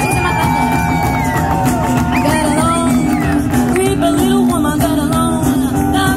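Live rockabilly band playing: a woman singing over electric and acoustic guitars, upright bass and drums, with a long held note near the start.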